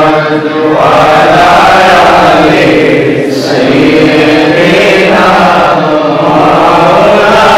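A man's voice chanting a long melodic line through a microphone and amplifier, drawing out held notes, with a short break about three seconds in. This is a preacher's sung, melodious delivery at a waz.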